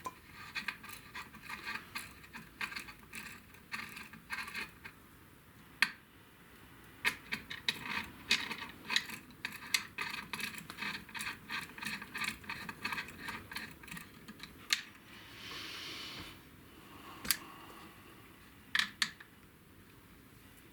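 Quick runs of small hard clicks and taps, like small parts being handled and set down on a workbench. A brief hiss comes about fifteen seconds in, and a few sharper clicks follow near the end.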